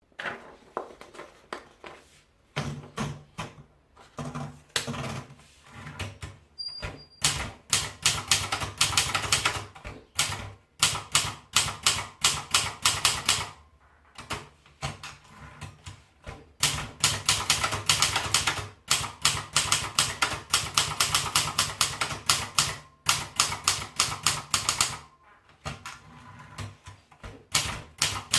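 Silverette manual typewriter being typed on: quick runs of key strikes, several a second, broken by short pauses. A brief high ringing tone sounds about seven seconds in.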